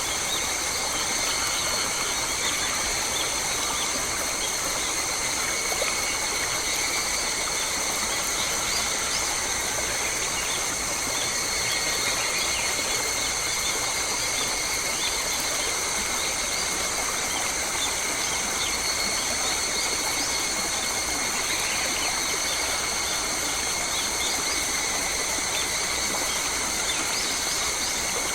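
Australian bushland ambience: a steady, high-pitched insect chorus drones without a break, with scattered short bird chirps over a low, even rumble.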